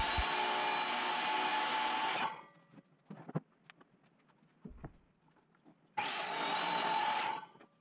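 Sliding compound miter saw running and crosscutting poplar boards, a steady whining cut that stops about two seconds in. A few light knocks follow, then a second cut of about a second and a half near the end.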